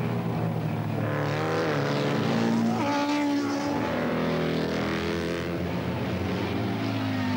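Racing motorcycle engines running at high revs, their pitch rising and falling.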